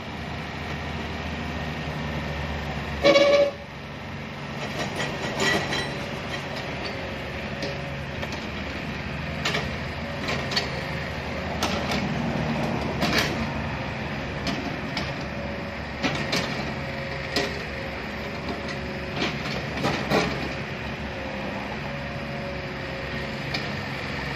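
Komatsu PC25-1 mini excavator's diesel engine running steadily under hydraulic load as the boom and bucket work, with a brief loud tone about three seconds in and scattered metallic knocks and clanks from the arm, bucket and tracks.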